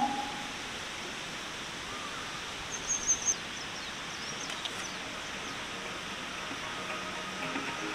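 Steady outdoor background noise, with a few short, high bird chirps about three seconds in.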